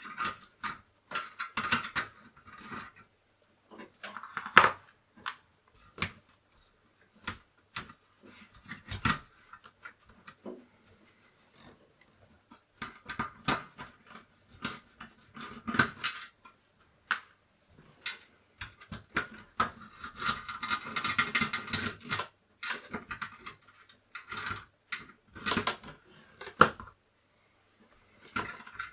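Irregular clicks and clinks of small metal screws and a screwdriver being handled while a Commodore 64 is unscrewed and taken apart, with a longer scraping, rustling stretch about two-thirds of the way through.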